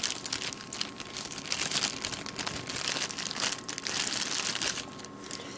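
Packaging holding spare earbud tips crinkling and crackling as it is handled and opened. It is a continuous run of small crackles, busiest through the middle.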